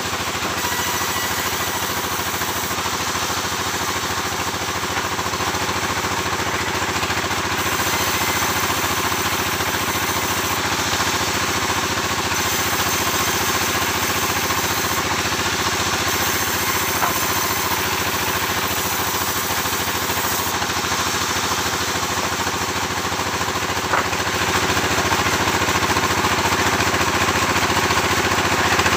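Sawmill machinery running steadily: a dense engine drone with a constant pitch. A sharp knock comes about three-quarters of the way through, after which it runs a little louder.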